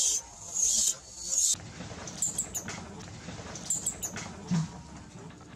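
Infant macaque screaming in three loud, shrill bursts, then a few short, high squeaks from the baby.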